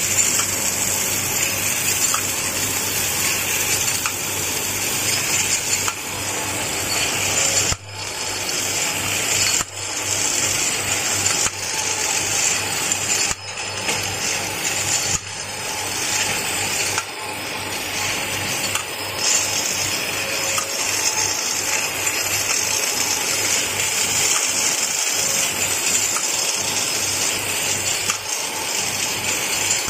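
Automatic vial filling and capping machine running: a steady mechanical whir and hum, with small clinks as the glass vials knock together on the conveyor and the collecting table.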